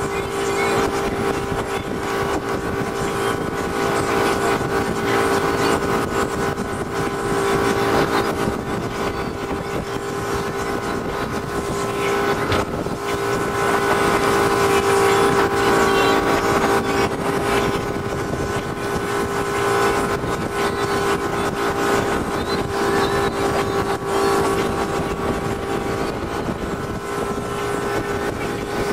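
Motorboat engine running steadily under way, a constant droning hum over the rush of wind and water.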